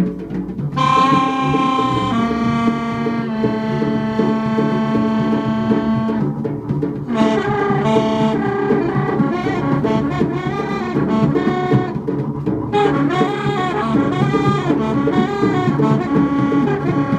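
Free jazz trio playing live: a reed horn holds long steady notes, then after a brief break about six seconds in plays fast, wavering runs, over double bass and drums.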